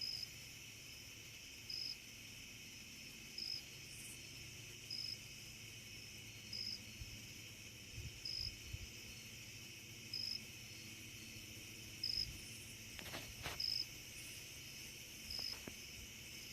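Night insects: one insect chirps in short high pulses about every 1.7 seconds over a steady insect chorus. A couple of sharp clicks come about 13 seconds in.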